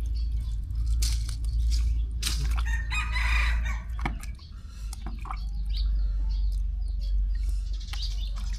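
A bird call about three seconds in, heard over a steady low rumble and scattered clicks.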